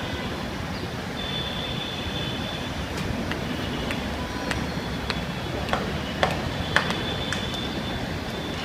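Steady outdoor traffic rumble, with a few sharp knocks in the second half and some high held tones.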